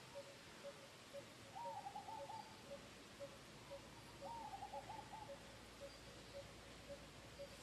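Faint bird calling: a single low note repeated steadily about twice a second. Twice, about a second and a half in and again about four seconds in, a short run of quick rising-and-falling call notes sounds over it.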